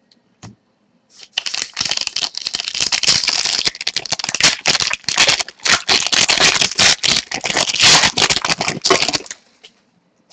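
Hockey trading-card pack being opened and its cards handled: dense crinkling of the wrapper and clicking of cards, starting about a second in and stopping abruptly about a second before the end.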